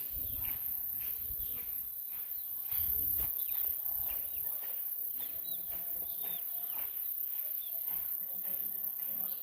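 Rural outdoor ambience: birds giving many short chirps over a steady high-pitched insect drone, with a low rumble in the first few seconds.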